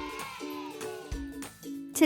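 Light background music with short plucked-string notes over held tones and an occasional low beat.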